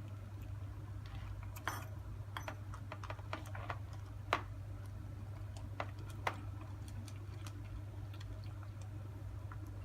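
Two-month-old Scottish Fold kitten feeding: scattered small clicks at an uneven pace, the two loudest about four and six seconds in, over a steady low hum.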